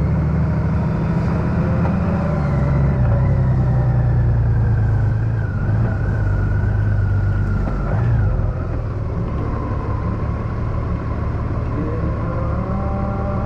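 Honda Gold Wing DCT's flat-six engine running under way. The engine note drops in pitch about two and a half seconds in and again about eight seconds in, and is a little quieter after that.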